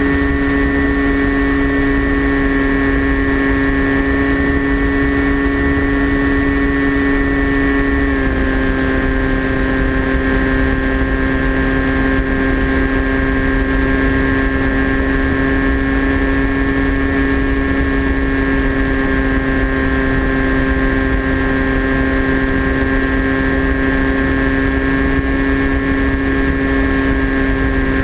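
Electric motor and pusher propeller of a TBS Caipirinha FPV flying wing, heard from the onboard camera: a steady whine at cruise throttle that drops slightly in pitch about eight seconds in, over low wind rumble on the microphone.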